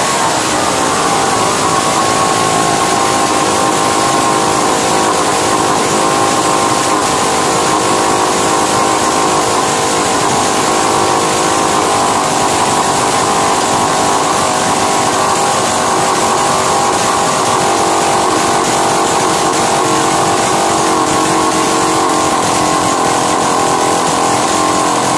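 Two-stroke '6200' petrol chainsaw engine running steadily at a fast idle with its silencer removed, while the carburetor's upper adjusting screw is loosened to bring down the racing idle.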